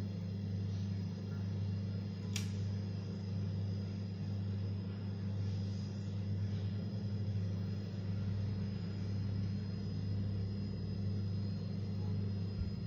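A steady low hum, unchanging throughout, with a single sharp click about two and a half seconds in.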